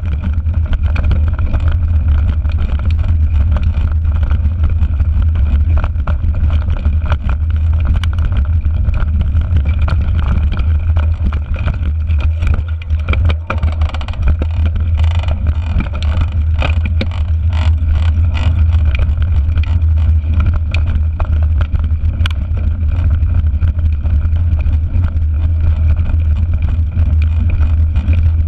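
Wind buffeting a handlebar-mounted action camera on a mountain bike ridden over a rough dirt and stone track: a loud, steady low rumble, with tyre noise and rattling clicks from the bike and loose stones that grow busier around the middle.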